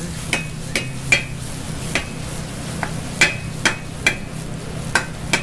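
Aluminium sauté pan being shaken and tossed over a gas burner to cook spinach: repeated sharp metallic clinks, roughly two a second and unevenly spaced, as the pan knocks about on the range.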